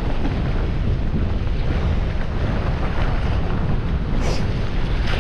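Strong wind buffeting the microphone, a steady low rumble.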